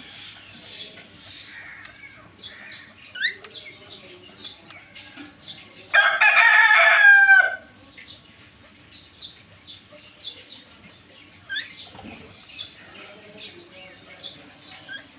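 Birds chirping and peeping throughout, with two quick rising whistles. About six seconds in comes one loud, drawn-out call lasting about a second and a half.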